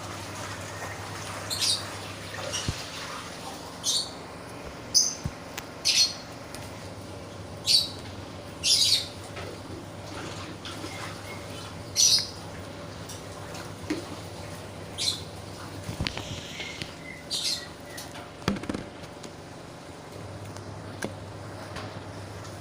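Slime being squished and pulled by hand, giving short wet pops and crackles at irregular intervals over a low steady hum.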